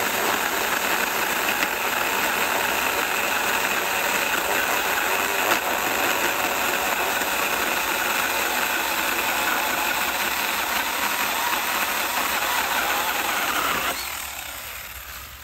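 Ryobi P5452 18-volt cordless 8-inch mini chainsaw cutting through a small sweet gum trunk: a steady electric motor whine mixed with the chain chewing through wood. About fourteen seconds in, the cut goes through and the saw is let off, its sound dying away.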